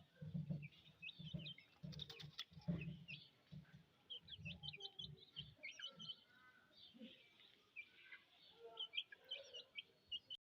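Small birds chirping, many short high chirps in quick succession, with soft low thuds in the first half. The sound cuts off suddenly near the end.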